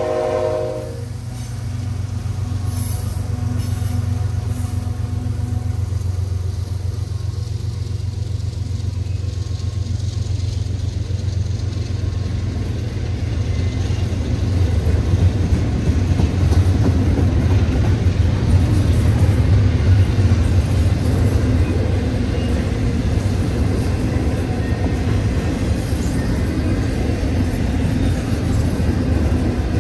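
Freight train horn ending about a second in as the CSX GE diesel locomotives pass. Then a double-stack intermodal train of container well cars rolls by with a steady, loud low rumble of wheels on rails, growing louder partway through.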